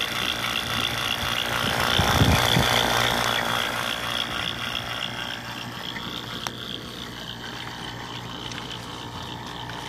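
Refrigeration vacuum pump running steadily with a constant whine and low hum, evacuating the air-conditioning system after the leak repair. A brief low thump about two seconds in, and the pump grows quieter after about five seconds.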